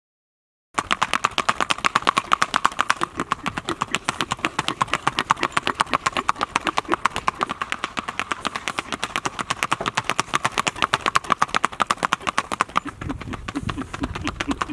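Rocky Mountain Horse stallion's hooves on pavement in a fast, even four-beat singlefoot gait: a rapid, regular clip-clop that starts about a second in. Near the end the hoofbeats turn lower and duller.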